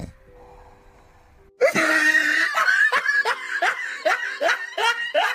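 A person laughing in a run of quick, repeated bursts, about three a second, starting about a second and a half in.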